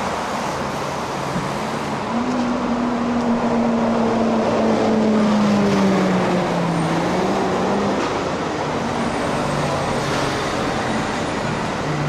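Road traffic going by steadily. A vehicle passes close about halfway through, its engine note sliding down in pitch as it goes by.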